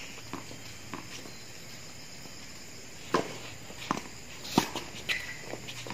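Tennis ball struck by rackets and bouncing on a hard court during a rally: a string of sharp pops, loudest about three seconds in and again about four and a half seconds in, with a short squeak a little after five seconds.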